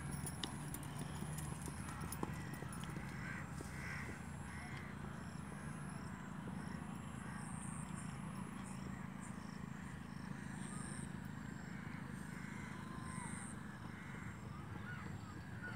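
A horse's hooves clip-clopping over a steady low rumble.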